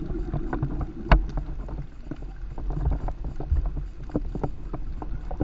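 Underwater sound picked up by a camera in its housing during snorkeling over a reef: a steady, muffled low rumble of water with many scattered clicks and pops, one sharper click about a second in.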